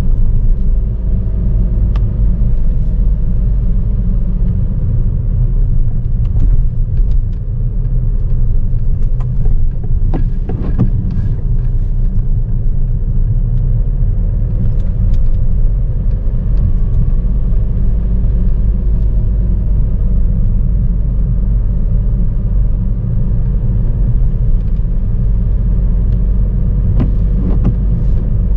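Car driving in the rain: a steady, deep rumble of road and engine, with scattered light taps of raindrops hitting the car.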